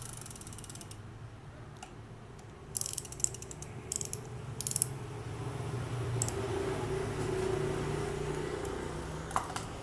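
Spinning fishing reels being handled: fast ratchet-like clicking from the reel's works, then a few sharp clacks about three to five seconds in, over a faint steady hum.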